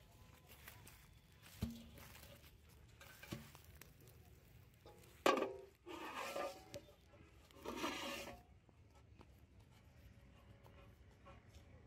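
Large aluminium basin being handled and carried on a grassy bank: a few knocks against the metal, one with a short ring, then scraping and rustling against the ground.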